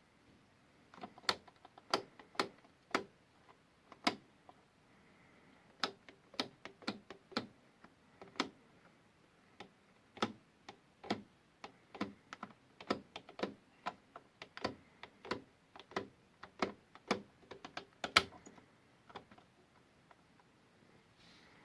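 Siemens Extraklasse washing machine giving a string of irregular sharp clicks and knocks, up to two or three a second and some much louder than others, which stop about two seconds before the end.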